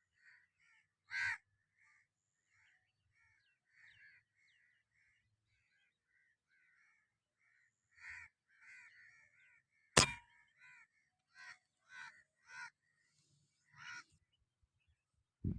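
Birds calling over and over in short calls, one louder call about a second in, with a single sharp crack of an airgun shot about ten seconds in, the loudest sound, followed by several more calls.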